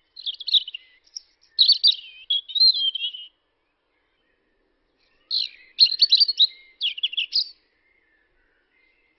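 A songbird singing two quick, warbling phrases of high notes, the second about two seconds after the first ends.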